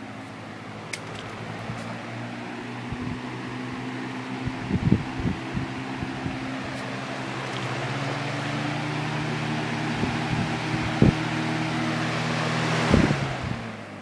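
Lasko 3733 20-inch box fan running on high: a steady rush of air over a low motor hum, with a few sharp knocks in between. The sound drops away sharply near the end.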